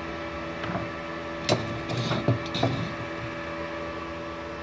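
MultiPro TIG 200A-SA inverter welder switched on and idling, giving a steady hum with several constant tones. A few light knocks and clicks of handling come between about one and three seconds in.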